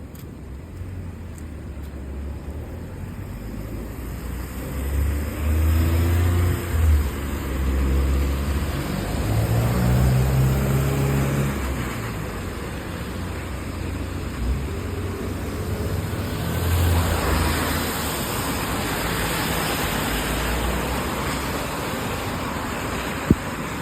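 Motor vehicles passing on a wet city street: a low engine rumble that rises and falls in pitch as a vehicle pulls away, then a swelling hiss of tyres on wet road. A single sharp click near the end.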